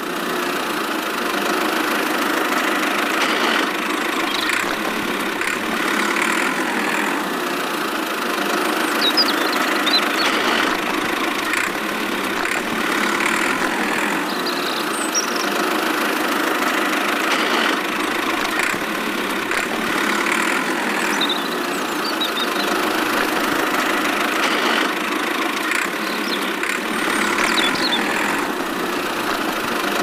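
An engine running steadily at an even pace, with no revving or stopping.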